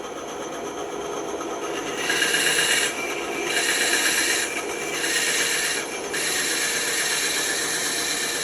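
Bandsaw running, with its blade cutting through wood from about two seconds in, in four stretches separated by short pauses.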